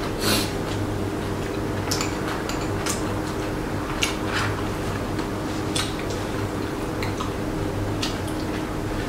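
Eating at the table: metal chopsticks and a spoon clicking against bowls now and then, with soft chewing and slurping noises, over a steady low hum.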